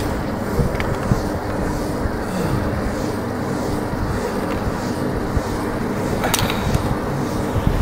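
Steady wind noise rumbling on the microphone, with a sharp click about six seconds in as the climbing rope and descender are handled.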